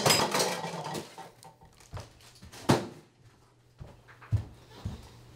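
Dishes and cutlery clattering briefly, then a single sharp knock about two and a half seconds in, and a few soft footsteps on the kitchen floor near the end.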